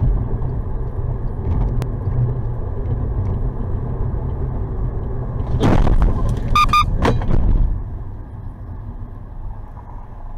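A car's engine and road rumble, recorded by a dash cam. About five and a half seconds in there is a loud noisy burst, then a brief high-pitched tone with overtones and another sharp burst, after which the rumble quietens.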